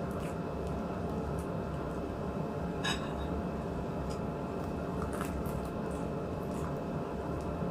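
Close-miked eating sounds of a meal eaten by hand: wet chewing and mouth sounds with a few small clicks, the sharpest about three seconds in and a cluster a couple of seconds later, over a steady low background hum.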